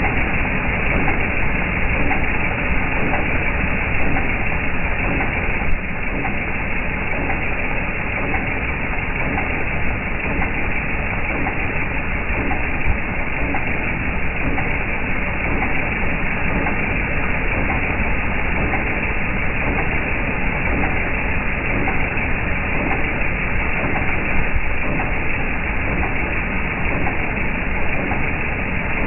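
Jeep TJ Wrangler's 4.0-litre inline-six engine running with a steady, repetitive knocking clatter of unknown cause. A single sharp click sounds about six seconds in.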